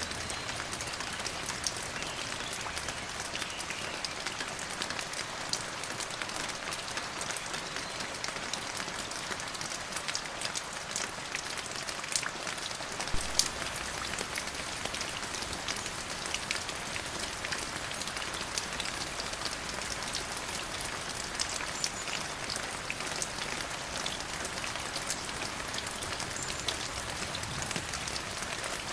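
Steady rain falling on a hard surface, an even hiss dotted with many sharp, separate drop impacts.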